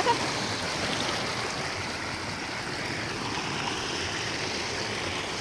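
Fast-flowing creek running over rocks: a steady rush of foaming whitewater.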